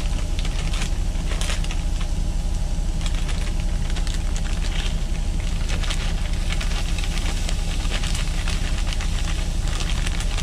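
Stir-fry sizzling and crackling in a hot pan as frozen vegetables are poured in from a plastic bag, over a steady low engine hum from the idling semi truck.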